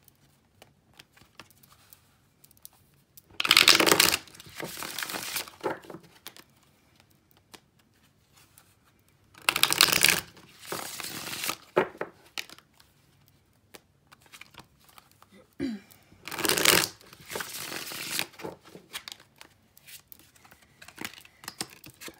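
A deck of large tarot cards being riffle-shuffled by hand three times, each a quick loud flutter of cards followed by a softer rustle as the deck is squared up.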